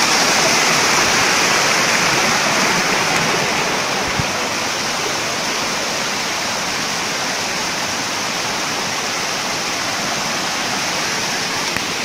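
Waterfall cascading down stepped rock ledges: a loud, steady rush of falling water, easing slightly after the first few seconds.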